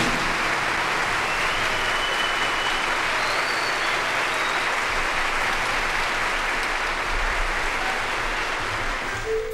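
Steady applause from a crowd clapping, a dense even patter that cuts off abruptly at the end.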